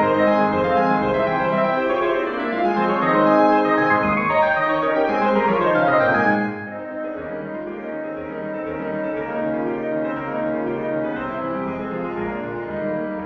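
Background music played on a keyboard instrument, with held notes that overlap, turning quieter about halfway through.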